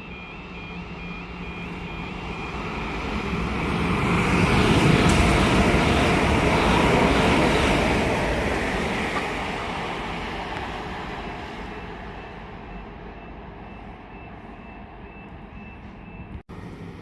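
A train passing on the main line below, its running and rail noise swelling to a peak about five seconds in and fading away over the next several seconds. A faint repeating electronic beep sounds at the start and again toward the end.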